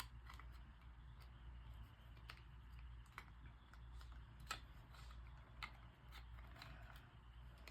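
Near silence with a low steady hum, broken by a handful of faint, scattered clicks of small plastic computer-mouse parts being handled and pressed together.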